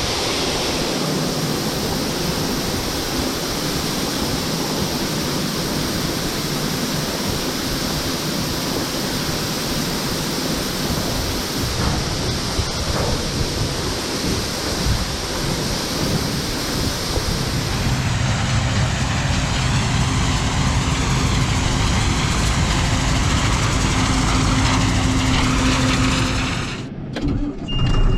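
An engine running under a steady rushing noise, its low hum growing plain about two-thirds of the way through. The sound dips briefly near the end, and a short high beep follows.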